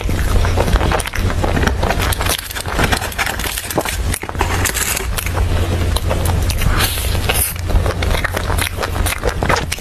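Close-miked chewing and mouth sounds of a person eating soft cream-filled pastries: dense wet clicks and crackles throughout, over a steady low rumble.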